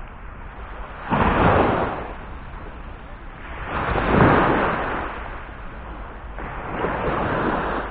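Small waves breaking on a sandy shore, three in a row a few seconds apart, each one a swell of rushing water, with a steady low wind rumble on the microphone underneath.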